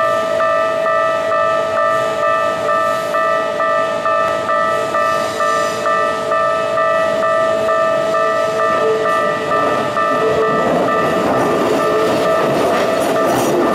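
Japanese level-crossing warning bell ringing steadily, about two strokes a second. About ten seconds in, the rumble and wheel clatter of a Keikyu train passing over the crossing swells up under it.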